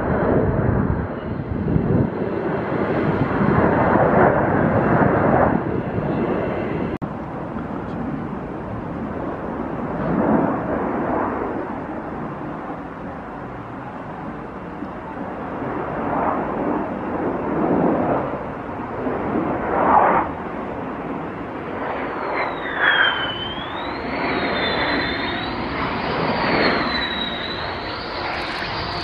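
The two F100 turbofan engines of a USAF F-15E Strike Eagle, heard as it banks round and comes in to land with its gear down. A loud rushing jet noise swells and fades several times, and from about three-quarters of the way through a high turbine whine glides down and back up as the aircraft draws closer.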